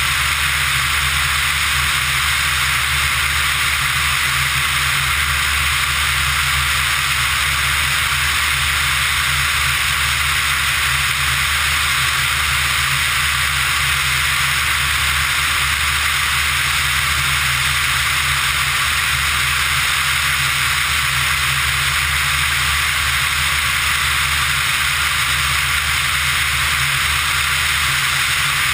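Steady rush of airflow over the outside-mounted camera of a Pipistrel Virus ultralight in level flight, with the engine's low, even drone underneath.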